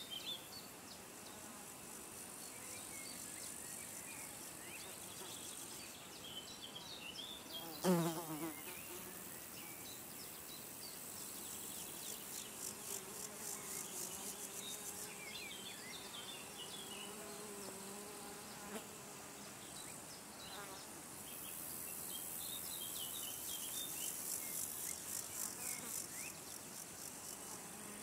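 Meadow insects trilling in high, rapidly pulsing stretches. About eight seconds in, a flying insect buzzes close past, its buzz dropping steeply in pitch. A lower, steadier insect buzz drifts by a few seconds later.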